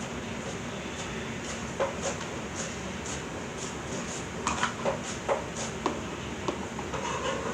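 Homemade sticky fluffy slime being squished and pulled by hand, giving irregular small pops and clicks over a steady background hum.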